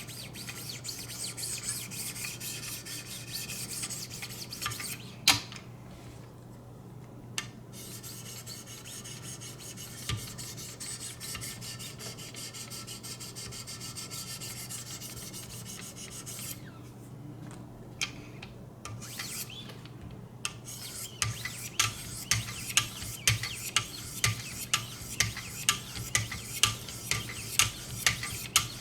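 A knife edge is stroked on a 1,000-grit sharpening stone of a guided sharpening system, making a steady scraping with a few clicks and two short pauses. Near the end the scraping turns into distinct strokes, about two a second.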